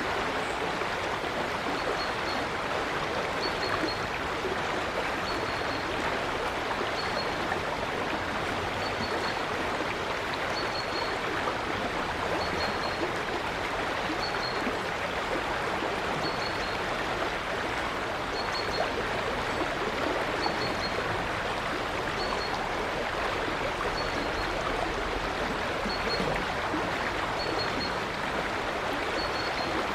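A river flowing steadily, with the even rush and gurgle of running water. Over it, a bird gives a short, high chirp about every two seconds.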